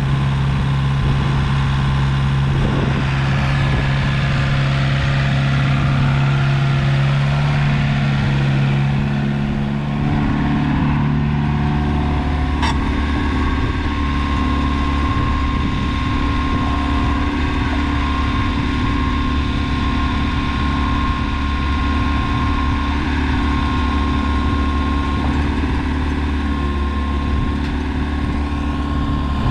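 IHI 50NX midi excavator's diesel engine running under hydraulic work as the boom and bucket are moved. The engine note shifts lower about ten seconds in, there is a single sharp click a couple of seconds after that, and a steady high tone runs underneath.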